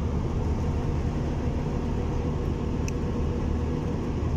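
Mercedes-Benz truck's diesel engine and road noise heard from inside the cab while driving, a steady low drone.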